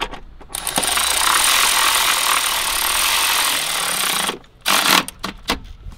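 Power tool with a 12 mm socket running down the battery-tray bolts: one long run of about four seconds, then a short burst about a second later, with a few clicks of the socket.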